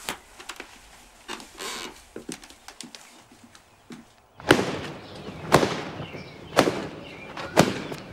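A hanging rug being beaten, four sharp slaps about a second apart, starting about halfway in. Before that, only faint rustling and small clicks.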